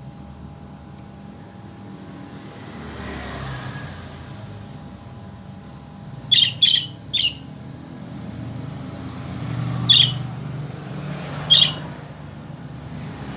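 A bird giving short, sharp, high-pitched calls: three in quick succession about halfway through, then two single calls a second or two apart, over a steady low background rumble.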